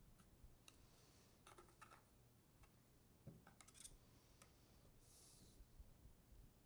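Faint scattered clicks and scrapes of a portable hard drive's casing being pried open by hand, little by little, with a brief soft scrape about five seconds in.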